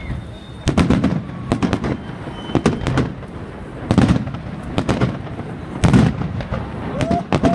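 Fireworks display: aerial shells bursting overhead in a rapid, irregular series of about a dozen bangs, each trailing off in a low rumbling echo.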